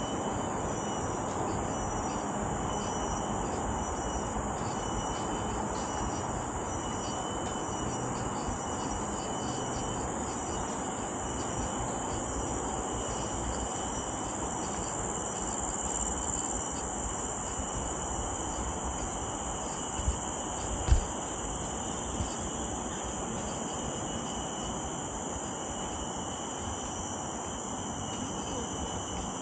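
Steady chorus of forest insects, shrilling at several high pitches without a break, over a low even rustle. Three brief low thumps come about two-thirds of the way through, the middle one the loudest.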